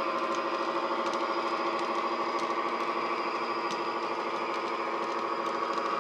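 Sound decoder in a model Class 41 Warship diesel locomotive playing a diesel engine running steadily through the model's small onboard speaker, with faint light clicks from the wagons' wheels on the track.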